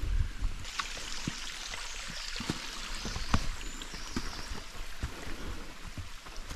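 Small mountain stream babbling steadily, with scattered light clicks and knocks.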